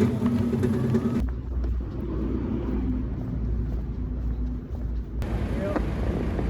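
Background music for about the first second, then a cut to a low, steady rumble, muffled until about five seconds in.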